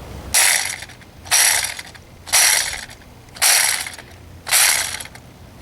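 Chainsaw starter cord pulled five times, about once a second, each pull lasting about half a second; the saw does not start.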